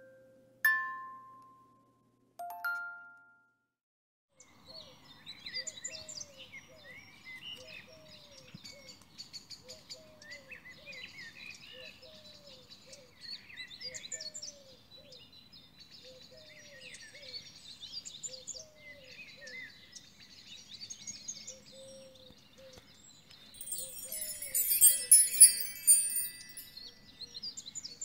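A short chime jingle of a few ringing notes, then birdsong: many birds chirping, with a low call repeated over and over. About 24 seconds in, a louder burst of high trilling.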